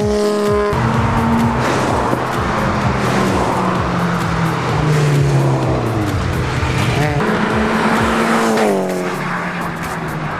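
Race car engines running hard as cars pass at speed on a circuit; the engine note drops sharply twice in the second half.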